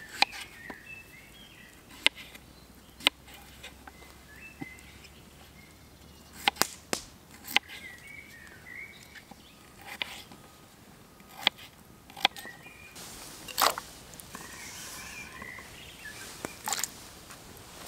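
A folding knife cutting through peeled potatoes and knocking on a wooden chopping board, about a dozen sharp taps at irregular intervals. Birds chirp now and then in the background.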